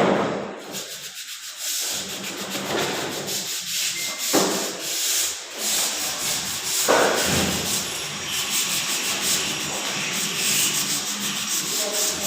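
Sandpaper rubbing back and forth over a hard surface in steady, repeated strokes.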